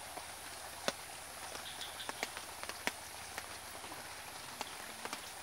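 Outdoor background at a fishing pond: a steady hiss with a few sharp, irregularly spaced clicks and faint high chirps.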